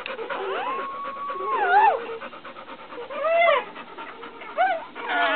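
A newborn puppy's high, thin cries, one held for about a second and then falling, followed by two shorter ones, over a dog's rapid panting.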